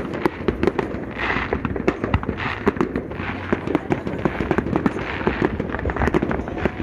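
Fireworks going off in a dense barrage: a rapid run of pops and crackles, with a few fuller bursts about one, two and a half, and three seconds in.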